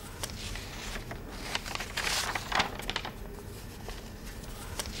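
Paper rustling and crackling as the pages of a book are turned by hand, in irregular bursts, loudest about two seconds in.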